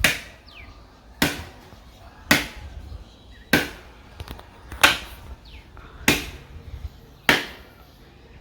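Seven chopping strokes of a hand-swung blade biting into a hard tree trunk, one about every second and a quarter, each a sharp whack.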